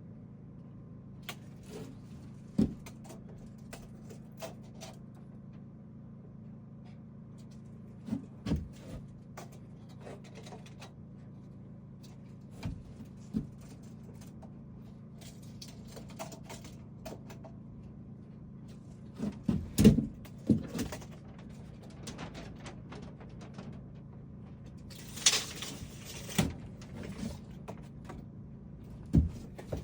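Scattered wooden knocks and clacks from cabinet doors being handled and fitted, over a steady low hum. The loudest knocks come about two-thirds of the way through, followed shortly by a brief scraping hiss.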